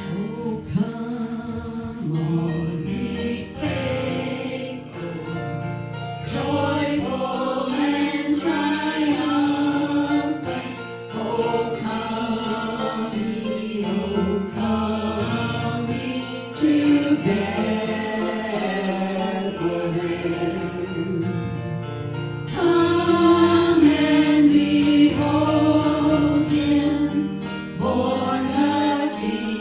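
Gospel song: voices singing a melody over instrumental accompaniment, with fuller, louder passages about a third of the way in and again past the middle.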